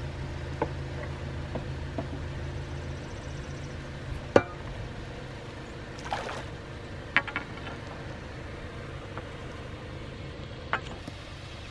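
Flood water rushing and splashing through a cranberry bed's bulkhead, with several sharp knocks and clicks as a metal hook probes the bottom board for a rock; the loudest knock comes about four seconds in.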